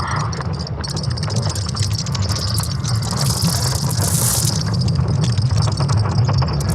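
Sonification of Earth's magnetic field built from ESA Swarm satellite data: a steady deep rumble overlaid with dense crackling and creaking clicks, with a brighter rush of hiss swelling about three seconds in and fading a second and a half later.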